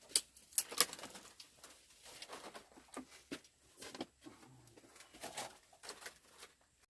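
Irregular crisp rustles and snaps of dry rice stalks being cut and handled by hand, the sharpest in the first second.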